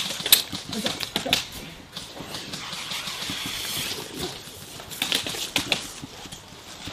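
A scattered string of sharp clicks and knocks, bunched near the start and again about five seconds in, with a softer rustle in between, from airsoft players moving and taking cover against a brick wall.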